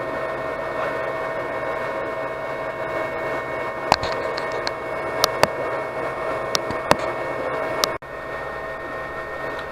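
The cooling fans of an Anycubic Chiron 3D printer running with a steady whir and a faint whine, with a few sharp clicks. The sound drops suddenly to a quieter hum about eight seconds in.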